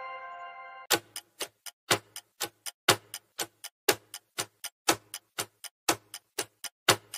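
A chime's ringing tail fading out in the first second, then a quiz countdown timer ticking like a clock, about four ticks a second with a louder tick every second, counting down the time to answer.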